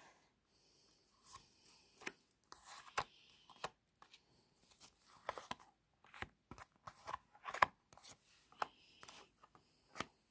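Cards being dealt one at a time from a deck onto a cloth-covered table: faint, irregular snaps and taps as each card is flicked off and laid down.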